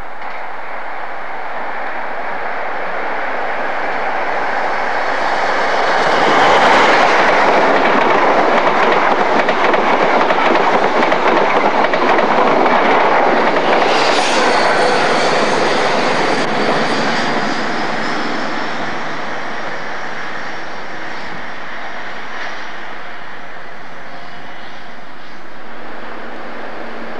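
An InterCity 125 high-speed train passing through at speed. The rumble of the train builds to a peak, a high whine falls in pitch as it goes by, and then the sound fades to a lower steady level.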